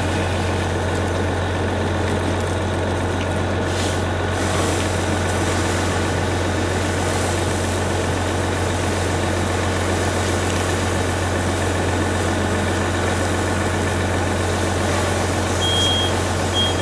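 Fire engine's diesel running steadily at pumping speed, a constant low drone, under the hiss of hose streams knocking down a room fire. Near the end a high beep sounds twice.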